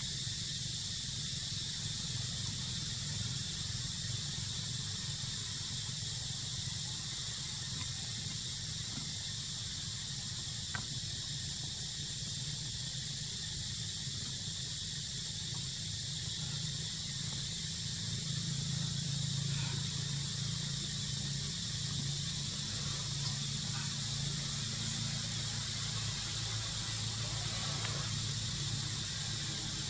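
Insects droning steadily at a high pitch in the forest canopy, with a low steady rumble underneath.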